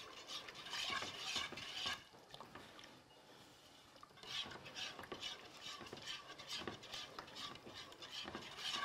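Wire whisk stirring semolina and milk in a coated metal saucepan, in quick scraping strokes against the pot. The whisking drops away about two seconds in and starts again about two seconds later.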